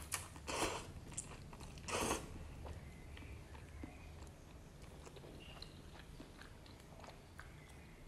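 A person eating a bowl of noodles: a few short, noisy bites or slurps in the first two seconds, the loudest about two seconds in, then faint chewing.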